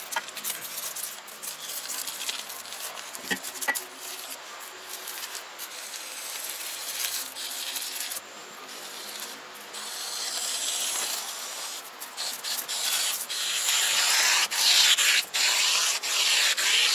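Foam gun spraying expanding polyurethane foam: a high hiss that comes in short on-off spurts, louder in the second half, with scattered clicks and handling noise.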